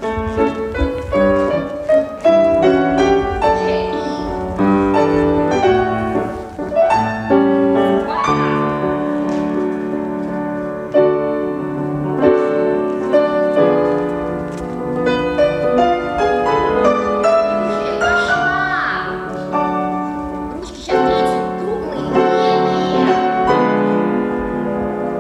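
Solo piano playing classical music, a flowing melody over chords, as a ballet rehearsal accompaniment.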